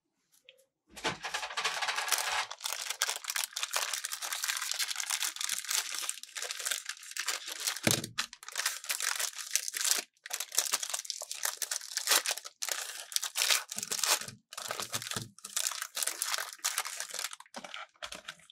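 Plastic wrapper of a Magnum ice cream bar torn open and crinkled by gloved hands: crackling that starts about a second in and goes on in stretches with brief pauses.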